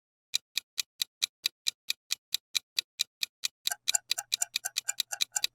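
Countdown timer sound effect: a clock ticking evenly about four or five times a second. A little past halfway the ticks come twice as fast, with a faint hum under them.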